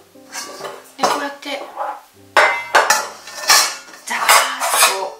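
Stainless steel mixing bowl, its flat lid and a perforated stainless strainer plate clinking and scraping against each other as they are handled and fitted together: a series of metallic knocks and rattles, louder in the second half.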